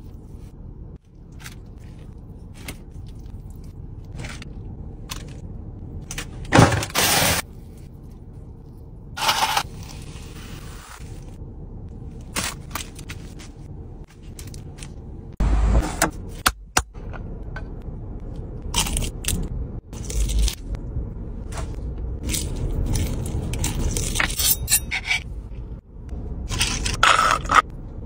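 Food being handled with gloved hands: meat and flatbread torn apart and foil wrapping crinkled. It is a string of irregular rips, crackles and rustles, some loud and some soft, over a low steady hum.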